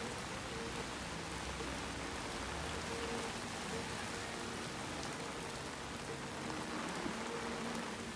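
Heavy downpour of rain pelting a wet street, a steady dense hiss that does not let up.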